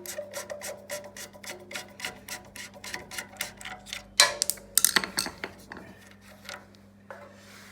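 Rapid light clicking, about five a second, from hand work on the carbon-brush caps of a Makita chop saw's motor, with a few louder knocks and clatter around four to five seconds in, then only faint handling. A steady low electrical hum runs underneath.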